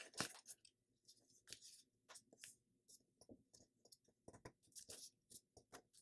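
Faint, scattered rustling and crackling of a sheet of printer paper being folded and creased by hand, with more of the soft crackles near the end.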